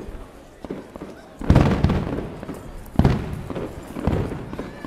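Fireworks shells bursting overhead: a loud boom about a second and a half in, another at about three seconds, and a smaller one near the end, each fading away after it.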